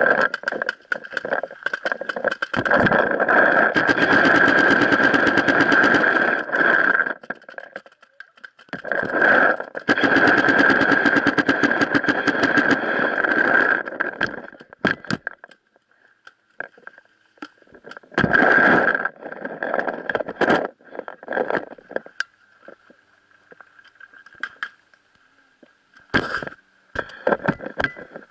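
Paintball marker firing in long rapid bursts, two of about four to five seconds each and a shorter one, then scattered single shots, over a steady high tone.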